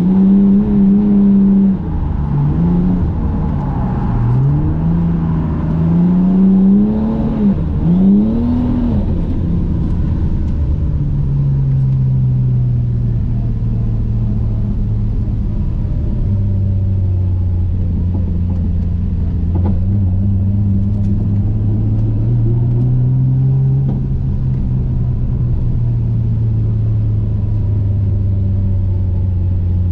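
Toyota JZX100 Mark II's straight-six engine heard from inside the cabin, revving up and down in quick repeated surges through the first ten seconds as the throttle is worked through a drift, then holding a steady, lower engine speed for the rest.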